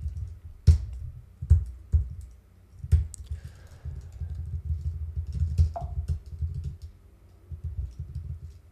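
Typing on a computer keyboard: irregular keystrokes, some heavier than others, thinning out near the end.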